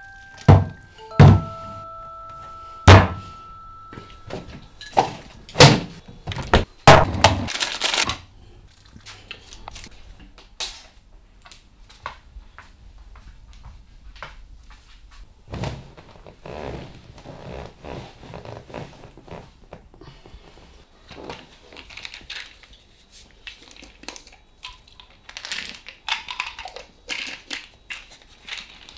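Several loud thunks in the first seven seconds, the first few with chime-like notes ringing over them, then quieter clicks and knocks and a stretch of rustling near the end, as household objects are handled.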